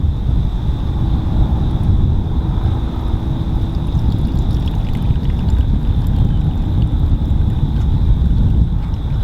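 Wind buffeting the microphone in a low, uneven rumble, with a thin, steady high-pitched whine running under it.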